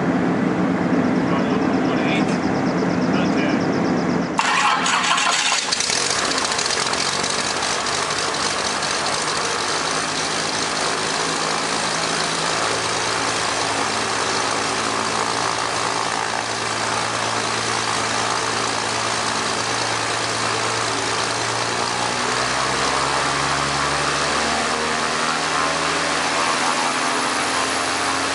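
Skybolt biplane's engine being started with the mixture rich and the throttle closed. It catches about four seconds in, then idles steadily with the propeller turning, its pitch rising a little near the end.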